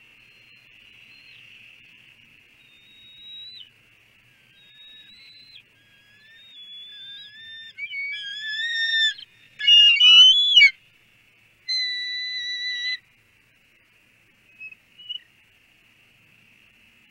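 Bald eagles giving their high, piping "chime" call: a string of thin whistled notes that grows louder and busier, peaks about ten seconds in, then ends in one held note and two faint short ones. It is the greeting call as the mate arrives at the nest to take a delivered fish.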